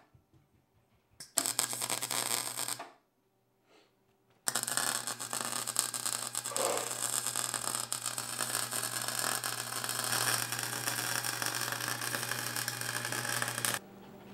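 MIG welder arc crackling and sizzling on steel go-kart steering spindle brackets: a short blip about a second in, a burst of about a second and a half, then after a pause a steady weld of about nine seconds that cuts off abruptly near the end.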